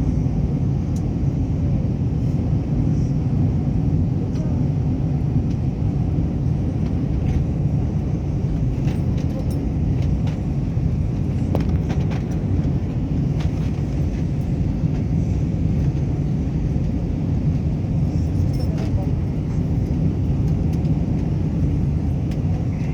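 Steady low rumble of jet airliner cabin noise: engines and airflow heard from inside the cabin during descent, with a few faint clicks.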